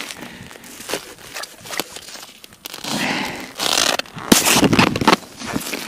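Irregular crunching and crackling of snow and ice being handled, with short sharp clicks, getting louder and denser about three seconds in.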